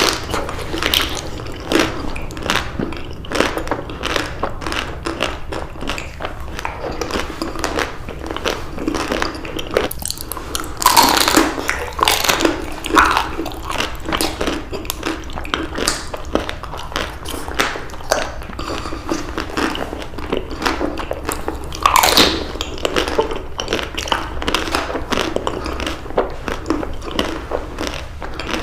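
Close-miked eating: crunchy bites into chocolate-coated ice cream candy bars and steady chewing, with louder clusters of bites about 11 seconds in and again about 22 seconds in.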